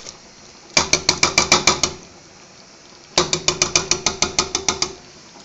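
Metal tuna can knocked rapidly against the rim of a stainless steel saucepan to shake the tuna out into the sauce: two runs of quick, even clinks, the first about a second in and a longer one from about three seconds in.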